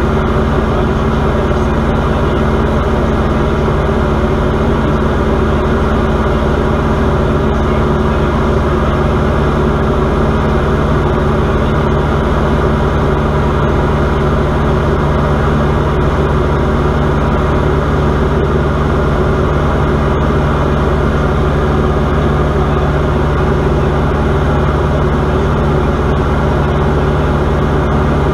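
Diamond DA40's piston engine and propeller running steadily in flight, heard inside the cockpit as a constant drone with no change in pitch.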